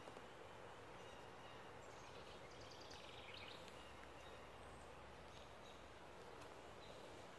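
Faint outdoor ambience: steady background noise with a few faint bird chirps in the middle.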